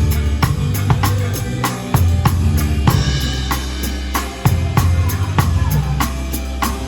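Pearl Reference drum kit played in a steady beat of kick, snare and cymbals over a backing song with sustained low bass notes. A cymbal crash rings out about three seconds in.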